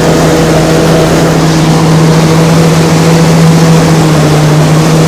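Corn-harvest machinery running steadily: a loud, unbroken engine drone with a strong low hum.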